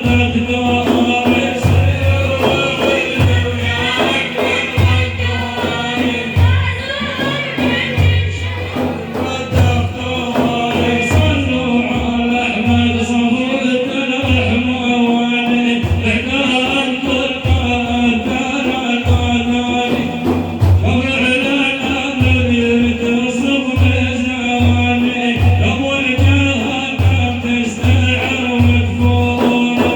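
A man singing a madih, an Islamic praise song to the Prophet, over a steady frame-drum beat.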